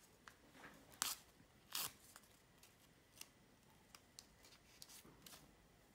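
Small alcohol-wipe sachet torn open by hand: two short, sharp rips, the second the loudest, followed by faint crinkles and clicks of the wrapper.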